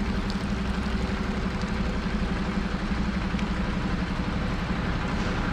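A steady, unchanging engine hum with a constant low drone.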